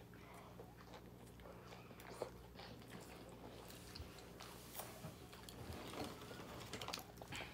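A person biting and chewing a Whopper bacon cheeseburger close to the microphone, with many small, soft, wet mouth clicks. A faint steady low hum runs underneath.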